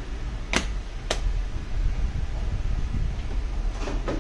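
Two sharp clicks about half a second apart, then two softer clicks near the end, over a steady low hum.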